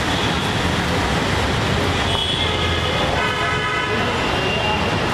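City street traffic: a steady rush of engines and tyres, with vehicle horns sounding for a couple of seconds in the middle.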